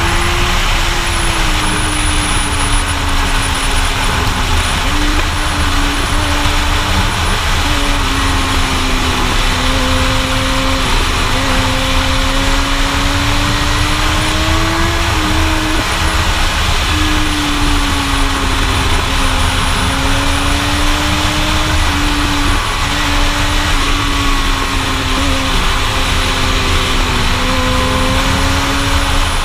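Suzuki GSX-R1000 inline-four engine running hard through a series of curves, its note rising and falling with the throttle and jumping in several abrupt steps, under constant heavy wind rush on the onboard camera's microphone.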